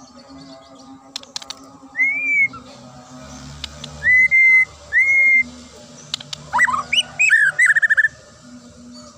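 White-rumped shama (murai batu) singing: a sharp, clear whistle rising at the end about two seconds in, two level whistles at about four and five seconds, then a quick run of varied, tumbling notes near the end.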